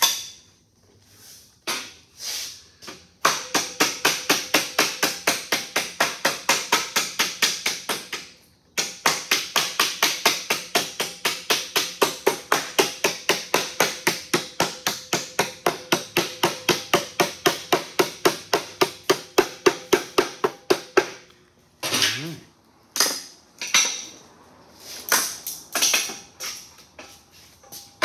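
Rubber mallet tapping quickly along the edge of 26-gauge galvanized sheet metal, folding a hem over a board edge, at about four strikes a second in two long runs with the metal ringing under the blows. A few slower, scattered knocks follow near the end.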